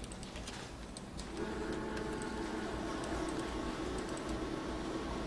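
Faint clicks of a computer keyboard and mouse. From about a second and a half in, a steady low hum sets in and stays.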